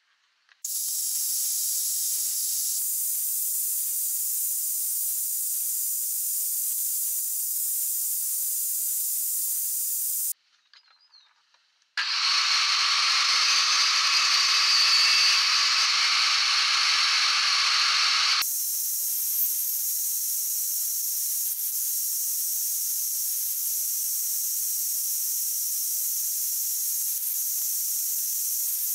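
Table saw running with a steady high hiss. It breaks off abruptly about ten seconds in, then comes back louder and fuller for several seconds while a beech board is fed along the fence. After that it settles back to the thinner hiss.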